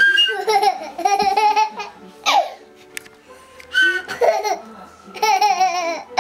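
A toddler laughing through a small plastic toy recorder, so that his laughs come out as wavering, warbling whistle notes. Several bursts, with a quick falling squeal about two seconds in.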